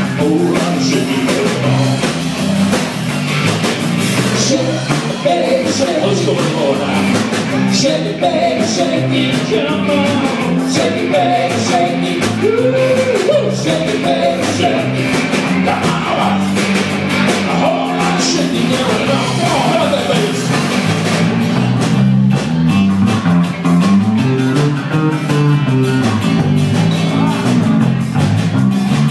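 Live bar band playing a rock-and-roll number on electric guitars, bass and drum kit, with a melody line weaving over a steady beat.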